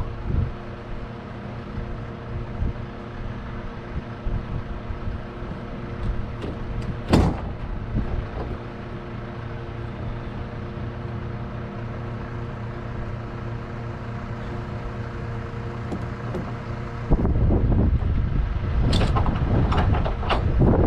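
Diesel engine of a heavy goods truck idling steadily, with one sharp knock about seven seconds in. Near the end the sound turns louder and rougher, with a few more knocks.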